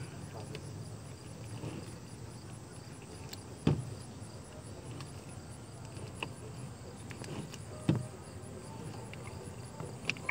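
Slime mixed with shaving cream being pulled and kneaded by hand in a plastic bowl, with two sharp thumps about four seconds apart and a few small clicks as it is worked against the bowl.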